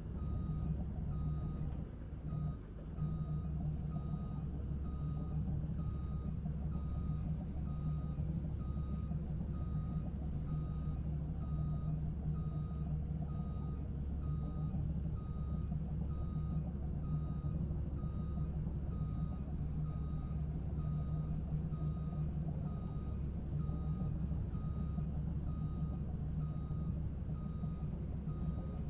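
Reversing alarm of a piece of heavy logging equipment beeping at an even pace while its diesel engine runs steadily underneath.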